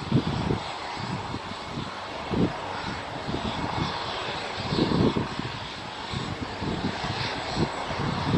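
Airliner engine noise running steadily, with wind buffeting the microphone in irregular low gusts, strongest near the start and about halfway through.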